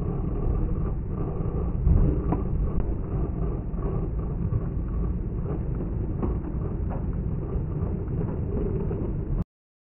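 Steady low road and engine rumble inside a car at highway speed, slowed down with the slow-motion replay so it sounds deep and dull, with a few faint clicks. It cuts off suddenly near the end.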